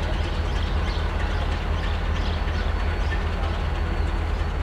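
Alco diesel prime movers of NSW 48 class locomotives running at low power, a steady low rumble.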